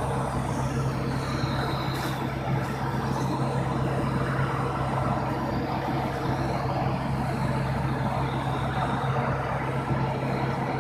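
Steady low mechanical drone of machinery running, unchanging throughout, with a constant hum under a broad noisy haze.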